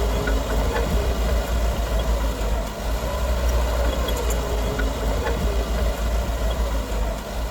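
Heavy earthmoving machine's diesel engine running steadily with a deep rumble, and a faint whine that slowly rises and falls in pitch.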